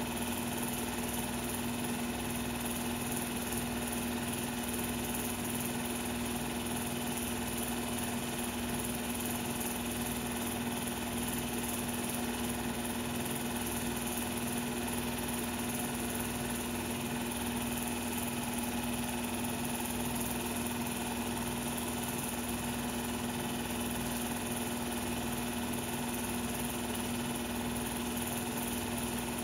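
16mm film projector running: a steady, unchanging motor hum with a strong low tone over a faint even hiss.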